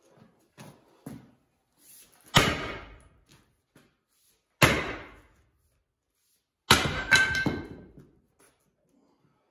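Three heavy sledgehammer blows about two seconds apart, striking a welded spring-steel axe to test whether it breaks. The third blow is followed at once by a second hit with a brief metallic ring.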